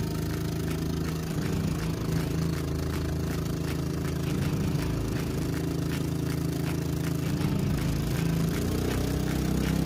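Small outboard motor on a canoe running steadily under way.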